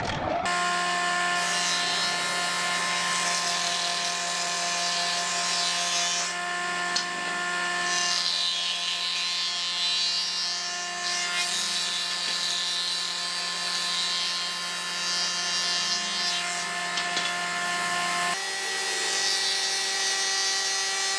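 Combination jointer-planer-thicknesser woodworking machine running, its motor and cutterhead giving a steady hum and whine while pallet-wood boards are fed through and planed, the cutting noise swelling and easing as each board passes. The sound comes in suddenly about half a second in, and the steady tones shift slightly about 18 seconds in.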